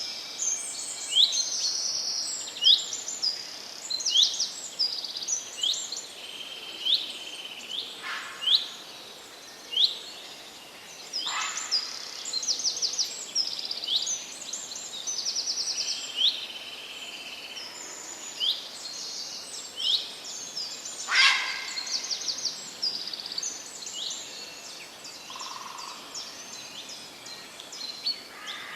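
Many small songbirds chirping and trilling in quick, overlapping calls over a steady background hiss, with three brief louder swishes.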